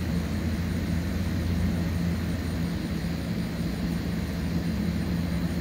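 A steady low mechanical drone with a held hum.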